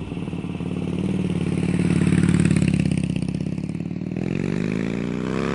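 Motorcycle engine running with an even pulsing beat, then revving up about four seconds in.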